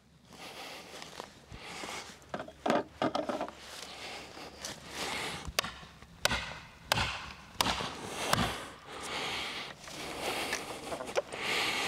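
Rustling in brush and leaves, with several sharp woody knocks or cracks in the middle.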